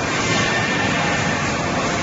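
Steady, even noise of running factory machinery on a stainless steel keg welding line, with a faint high whine.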